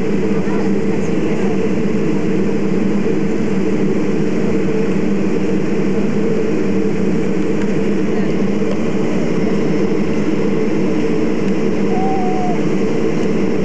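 Airliner engines at takeoff power heard inside the cabin during the takeoff roll: a loud, steady drone that doesn't let up.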